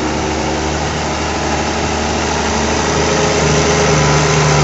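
New Holland T7.185 tractor's diesel engine running steadily under load as it pulls a disc harrow through the soil close by, growing a little louder near the end.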